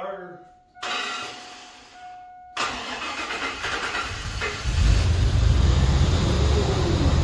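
GMC pickup plow truck being started: the key is cycled and the weak fuel pump primed, then the starter cranks for about two seconds and the engine catches and runs steadily, a loud low rumble through the second half.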